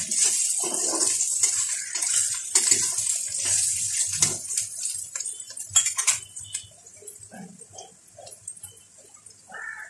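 Chopped onions and green chillies sizzling in hot oil in a kadai, stirred with a metal spatula that scrapes and clicks against the pan. The sizzle dies down after about six seconds, leaving only faint scattered clicks.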